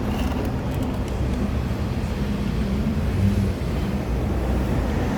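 Steady low rumble of a motor vehicle, with a few faint light ticks.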